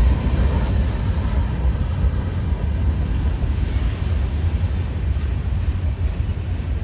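Freight train's last cars rolling past and moving away, the clatter of the wheels thinning out within the first second and leaving a steady low rumble.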